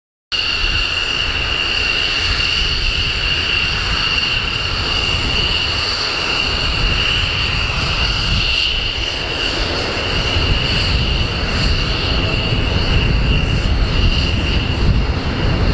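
Two-seat F-16 fighter's Pratt & Whitney F100 turbofan whining steadily at low taxi power, with a low rumble underneath that grows a little louder in the second half.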